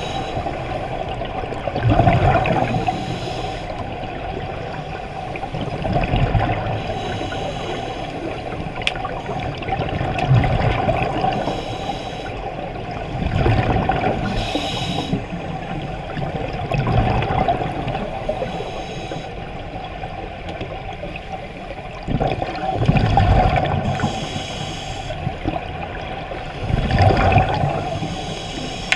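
Scuba divers breathing through their regulators underwater: about every three to four seconds an exhalation sends out a burst of bubbling through the regulator exhaust, over a steady underwater hiss.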